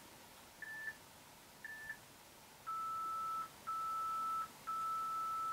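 Electronic workout interval timer beeping the countdown: two short high beeps about a second apart, then three longer, lower tones, the last one longest, signalling the end of the interval.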